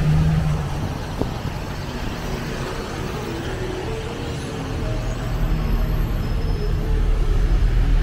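Low, steady rumble of road-vehicle noise, growing louder in the second half.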